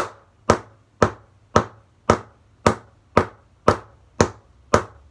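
A wooden stick striking a flat sheet of cardboard at a steady pace, about two hits a second, each a short sharp hit that dies away quickly.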